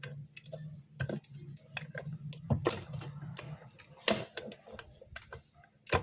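Irregular sharp clicks and knocks of small metal tools and parts being handled, at uneven intervals, over a faint steady low hum.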